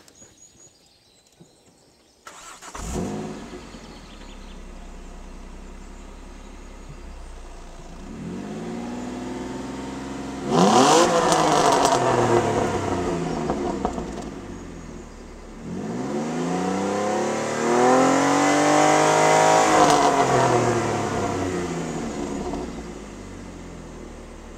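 Ford Mondeo ST220's 3.0-litre V6, running without its front silencers, starts about two seconds in with a brief flare and settles to idle. It is then revved up and let fall back twice before returning to idle.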